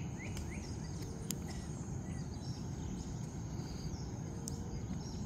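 Steady low rumble of ocean surf breaking on the beach. Above it are a few short falling bird chirps in the first couple of seconds and a thin, steady insect whine.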